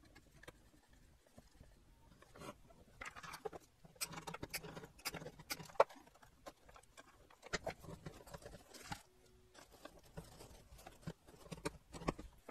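Light handling noise of a circuit board being held and turned over on a workbench: scattered taps, clicks and rustles, with one sharper click about six seconds in.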